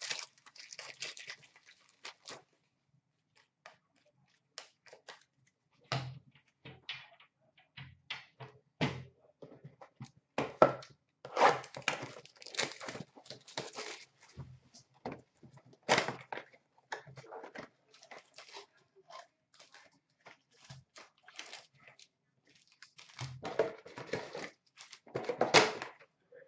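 Packs of 2016-17 Upper Deck Series 1 hockey cards being opened and sorted by hand: irregular taps and flicks of cards set down on a stack, with rustling and tearing of pack wrappers. The rustling is densest near the end.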